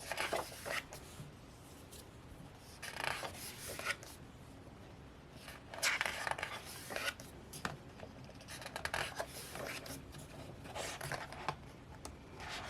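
Paper rustling as pages of a photo book are turned and handled, several separate rustles a couple of seconds apart.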